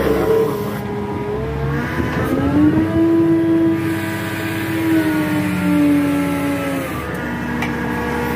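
Tractor's diesel engine running, its pitch rising about two seconds in, holding, then easing back down over the next few seconds as the front hydraulic attachment is worked from the joystick.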